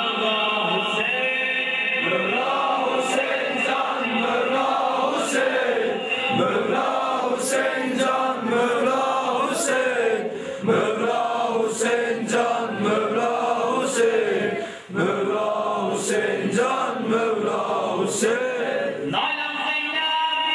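Men chanting a Shia Muharram mourning lament (noha), led by a reciter, with sharp chest-beating slaps in time about every two seconds.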